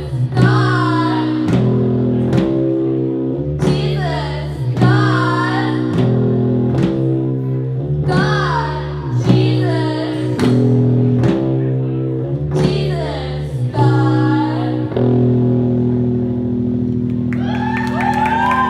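Live band music: electric guitar and bass chords with a sung phrase about every four seconds, settling on a held chord near the end as cheers and shouts from the audience begin.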